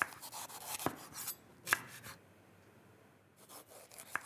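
Kitchen knife cutting bell peppers on a cutting board: three sharp knocks of the blade on the board in the first two seconds with scraping, slicing noise between them, a quieter stretch of about a second, then another knock near the end.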